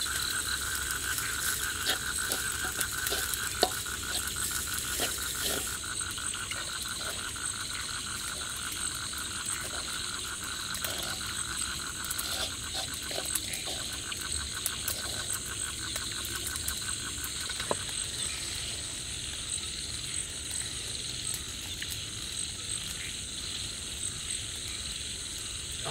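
Night-time chorus of frogs and insects: a fast pulsing trill that stops about two-thirds of the way through, over a steady high insect buzz. A wooden spatula scrapes and taps in a wok now and then.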